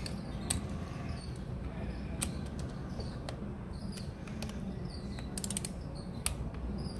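Small hand tool turning the stator wire-retainer bolt on a KLR650's engine case: scattered light metallic clicks, and a quick run of clicks about five and a half seconds in, over a low steady hum.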